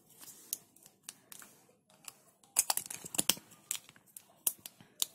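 Plastic and metal lipstick tubes and caps clicking and tapping against each other as they are handled. A few separate clicks come first, then a quick run of clicks about halfway through, and a few more near the end.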